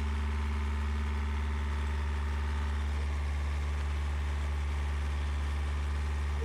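Yanmar inboard marine diesel running steadily while the boat motors, heard up close in the engine compartment: an even, unchanging low hum.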